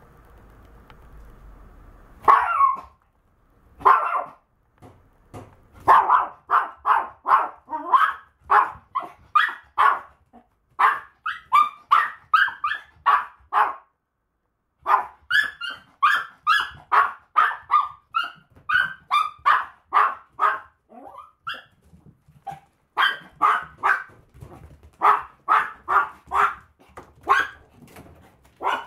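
Small Maltese dog barking over and over: two single barks, then long runs at about two barks a second, broken by short pauses.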